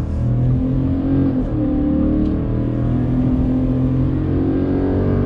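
Ford F-150's 5.0-litre V8 accelerating under throttle, heard inside the cab. The engine note climbs, drops back about a second and a half in as the 10-speed automatic shifts up, then climbs again.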